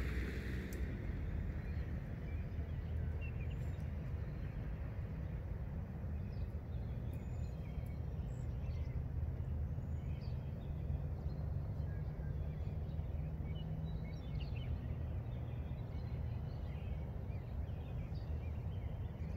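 Steady low rumble of outdoor background noise, with faint, short high chirps scattered through it.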